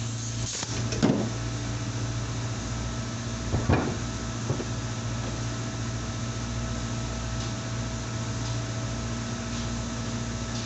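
A workshop machine motor humming steadily, with a few short knocks about one second in and again near four seconds in.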